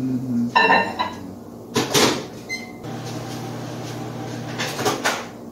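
Countertop microwave oven in use: a door clunk, a short keypad beep, then a steady low hum as it runs for about two seconds before stopping, followed by another clatter.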